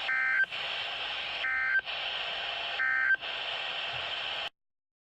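Three short bursts of EAS data tones from NOAA Weather Radio, the End Of Message code that closes the Required Weekly Test, about 1.4 seconds apart over steady radio hiss. The recording cuts to silence about four and a half seconds in.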